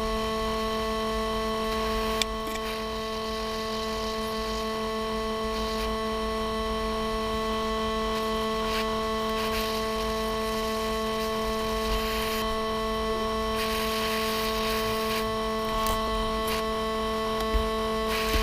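Hot-air SMD rework station running with its heater and air on: a steady hum over an even rush of blown air, with a few faint ticks.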